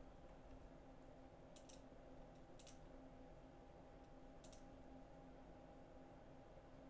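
A few faint computer mouse clicks, a quick pair then two single clicks spread over the next few seconds, over a faint steady hum.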